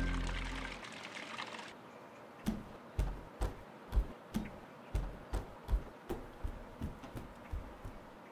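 Music fades out in the first second or so, then a child's footsteps sound on a concrete floor, about two steps a second, growing fainter as the child walks away.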